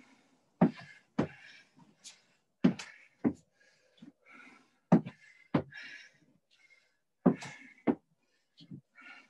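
Feet thudding on a rubber gym floor during reverse lunges: two thuds per rep, about half a second apart, as one foot steps back and then returns, with a rep every two seconds or so. Each thud is followed by a short hiss.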